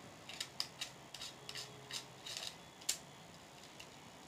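Small plastic clicks and scrapes from a fitting on the back of a phone clamp being twisted by hand: an irregular string of sharp ticks over the first three seconds, the loudest near the end of them.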